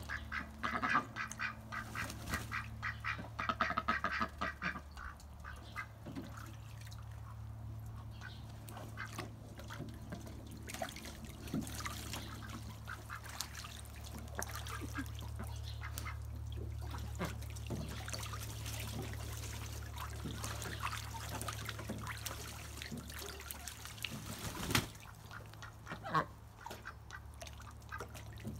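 Two white domestic ducks splashing and dabbling in a shallow tray of water, with a run of rapid quacking chatter in the first few seconds and scattered small splashes and drips after. One sharp knock near the end, over a steady low hum.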